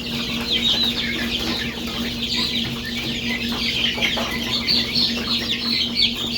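A group of young chicks peeping constantly, many short, high, falling peeps overlapping.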